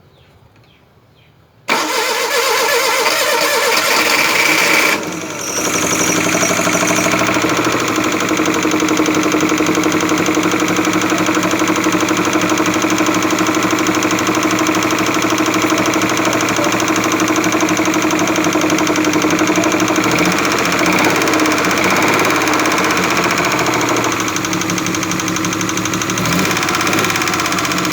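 Suzuki F5A three-cylinder engine starting about two seconds in, dipping briefly, then running steadily with a knock that the owner puts down to a defective camshaft.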